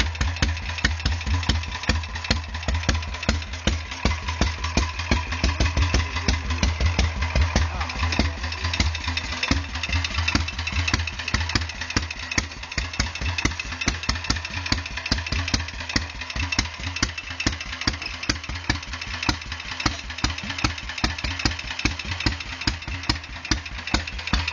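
Vintage Moto Guzzi horizontal single-cylinder engine with an exposed outside flywheel idling, a steady, even beat of firing strokes.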